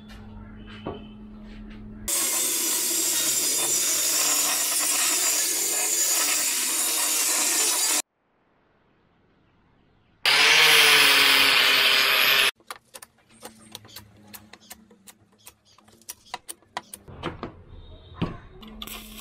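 A power tool working on steel in two loud stretches, about six seconds and then about two seconds, with a short gap between. It is followed by a run of light metallic clinks as flat steel bars are laid out and shifted by hand.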